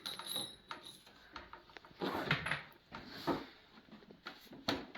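Irregular wooden knocks and clatter as parts of a wooden mud kitchen are handled and fitted together, with the loudest knocks about two seconds in, just past three seconds, and near the end.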